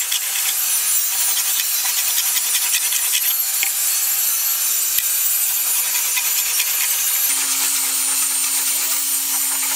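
Hand file rasping back and forth along the edge of a steel knife blade, filing and shaping it.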